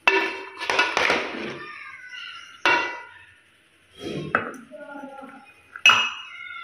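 A metal ladle knocking and scraping against a metal pot as thick mango milkshake is scooped out: four sharp clinks that ring briefly. Near the end the milkshake is poured from the ladle into a glass mug.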